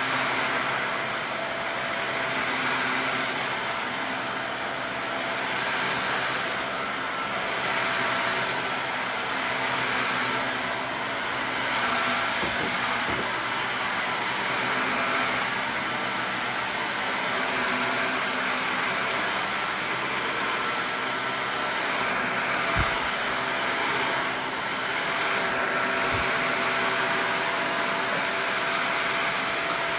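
Upright vacuum cleaner running steadily on carpet, its hiss and motor whine swelling and fading every couple of seconds as it is pushed back and forth. Two brief low thumps come near the end.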